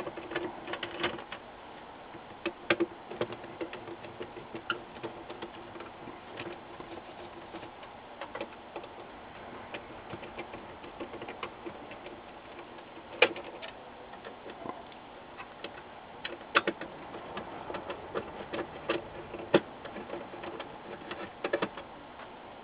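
Screwdriver backing out the small screws that hold a monitor's power supply board to its metal chassis: light, scattered metallic clicks and taps, with a few sharper clicks now and then.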